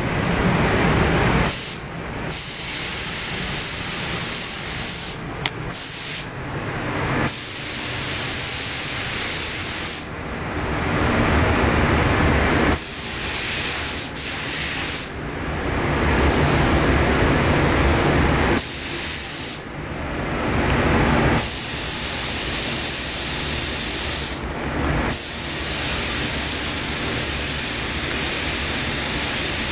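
Compressed-air gravity-feed spray gun hissing in repeated bursts of a few seconds each, with short breaks between where the trigger is let go.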